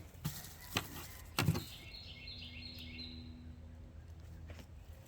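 A bird singing in the background: a quick run of high chirps lasting about a second and a half, starting about two seconds in, after a few soft knocks.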